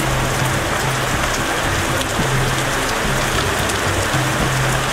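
Heavy rain falling steadily, an even hiss with scattered sharp drop taps.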